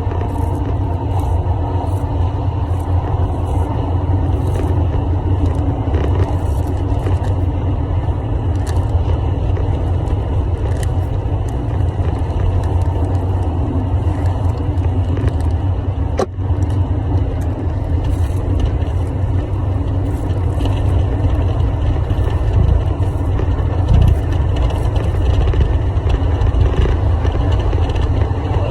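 Steady low rumble without pauses, with a brief dip about halfway through.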